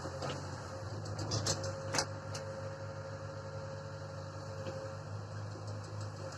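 Tractor engine running steadily at low speed, with a few sharp knocks about one and a half and two seconds in.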